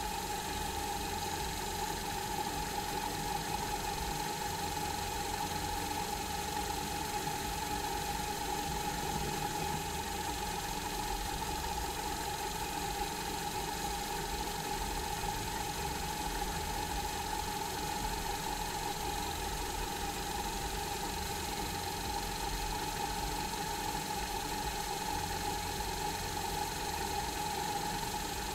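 Small cue lathe motor running with a steady, unchanging hum while it spins a pool cue shaft, as the new jump tip is trimmed down flush with the ferrule.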